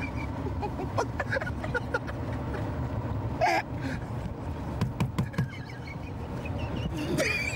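Car on the move, heard from inside the cabin: a steady low rumble of engine and road noise. A man gives a brief yell about three and a half seconds in and starts yelling again near the end.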